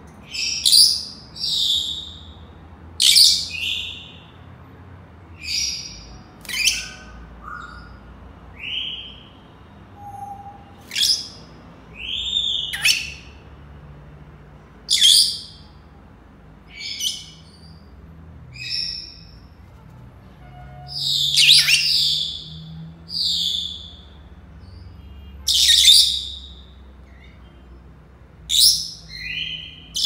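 Senegal parrots calling: a string of short, shrill whistles and squawks every second or two, with a few clear rising whistled notes among them.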